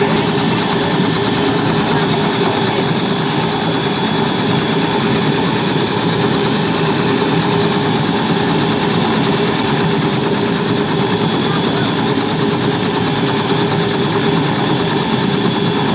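Robinson R66 helicopter's Rolls-Royce RR300 turboshaft engine running on the ground with the main rotor turning: a loud, steady high turbine whine over the even beat of the rotor blades.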